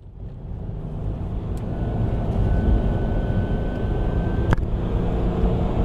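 Car driving, heard from inside the cabin: a steady low engine and road rumble that fades in over the first couple of seconds, with a sharp click about four and a half seconds in.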